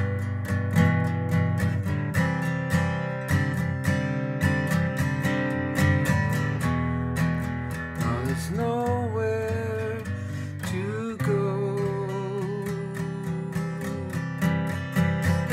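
Acoustic guitar strummed in a steady rhythm of chords. About halfway through, a man's voice comes in, gliding up and then holding a long note over the guitar.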